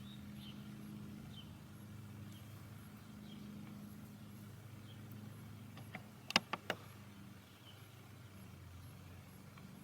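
A steady low hum, like a distant motor or traffic, with faint short chirps and a few sharp clicks a little past the middle.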